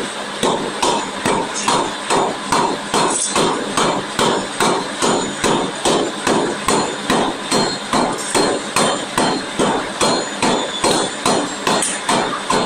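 Pneumatic forging hammer pounding a red-hot workpiece in a steady, rapid rhythm of about two and a half blows a second.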